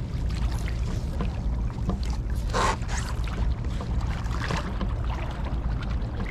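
Water splashing and sloshing against a stand-up paddleboard, with one louder splash about two and a half seconds in and a smaller one near the middle, over a steady low rumble of wind on the microphone.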